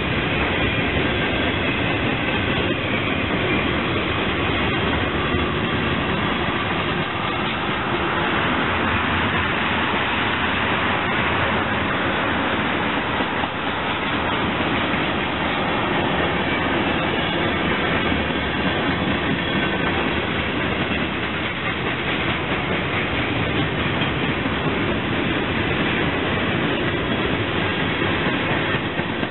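Freight train of boxcars, tank cars, gondolas and steel coil cars rolling past close by: a steady, unbroken noise of steel wheels on rail and rattling cars.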